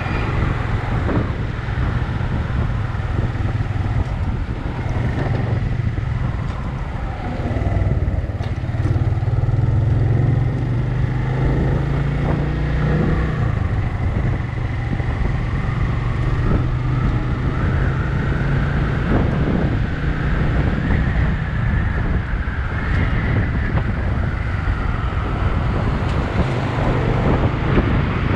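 A motor vehicle running steadily, with a constant low drone and road noise.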